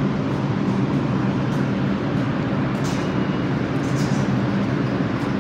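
New York City subway train running: a steady rumble with a low electric-motor hum and brief high squeals about three and four seconds in.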